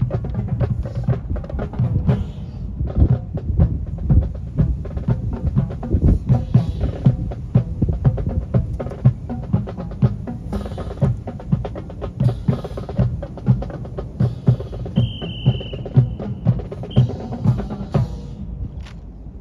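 Drums and percussion playing a fast rhythm of sharp, clacking hits over deep bass-drum beats. A brief high steady tone sounds about three-quarters of the way through, and the playing stops just before the end.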